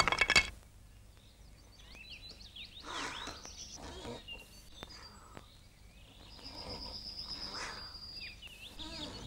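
Dawn birdsong: many small birds chirping and twittering in short rising and falling calls, with a steady high trill for about two seconds past the middle. A crash from the cut before dies away in the first half second.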